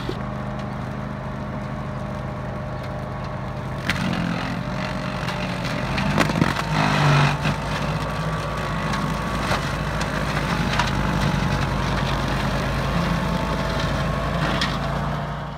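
Grillo Climber 10.27 AWD ride-on brush mower running steadily under load as its deck cuts through dense woody brush, the blades cracking and snapping stems. The cutting grows louder from about four seconds in, with the heaviest burst of snapping about six to seven seconds in and single sharp cracks later on.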